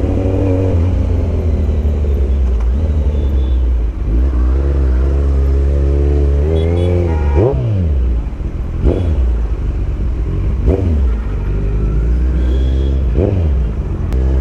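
Kawasaki Z900's inline-four engine running loud at low speed with a steady low drone, building up gradually from about four seconds in, then revved in four short, sharp blips that rise and fall quickly in the second half.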